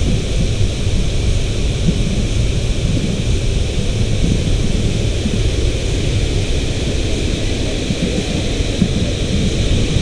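Steady, loud rushing roar of river water below a waterfall: a deep rumble with a hiss over it.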